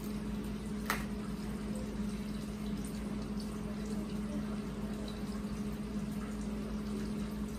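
Steady low electrical hum over an even hiss, with one light click about a second in.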